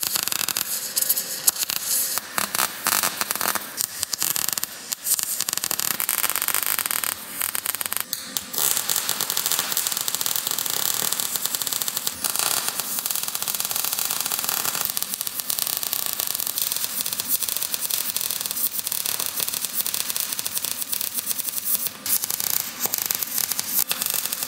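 Wire-feed (MIG) welder's arc crackling and hissing as beads are laid on the steel tubing of a fuel cell mount. There are several runs with short breaks between them.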